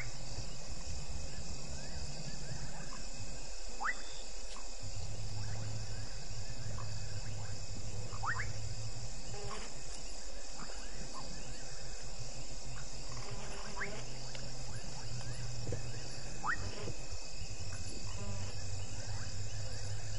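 Night chorus of crickets and other insects, a steady high trilling. A short rising call sounds about every four seconds, and a low hum comes and goes.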